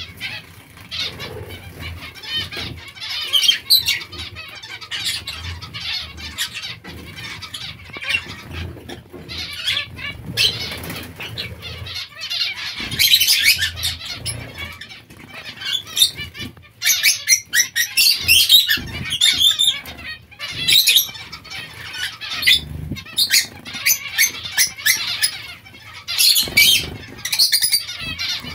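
Zebra finches and society finches bathing in a shallow dish of water: irregular bursts of splashing and fluttering wings, with the finches' chirps among them.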